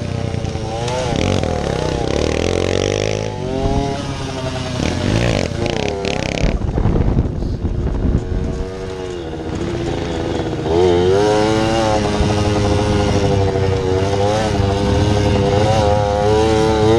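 Mini bike engine revving up and down while ridden over a rough dirt trail, its pitch rising and falling with the throttle. It eases off about halfway through, then holds higher, steadier revs for the last several seconds.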